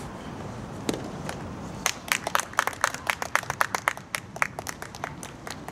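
A soft tennis racket strikes the rubber ball once about a second in. A small group then claps for about two seconds, thinning out into a few scattered claps.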